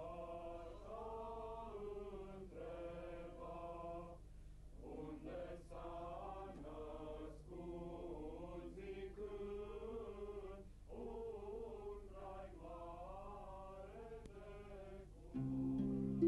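A group of voices singing unaccompanied in slow, chant-like phrases. About a second before the end, a plucked-string tune comes in and is the loudest sound.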